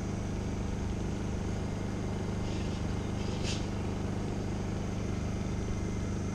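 Portable generator engine running steadily at a constant speed, giving an even low hum. A faint light click comes about halfway through.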